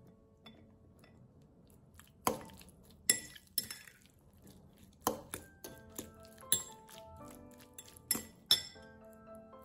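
Metal fork clinking against a glass mixing bowl, a scatter of sharp irregular clinks as tofu and green beans are stirred together, over soft background music.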